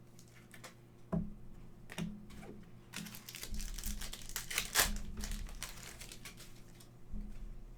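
Wrapper of a Panini Prizm football trading-card pack crinkling and tearing as it is opened by hand. A few light clicks and taps come first, then a dense run of crinkling about three to five seconds in.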